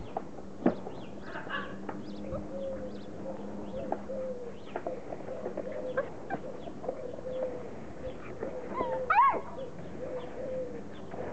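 Border collie puppies playing and vocalising: many short, high squeaks and a wavering low whine that comes and goes, with a louder rising yelp about nine seconds in.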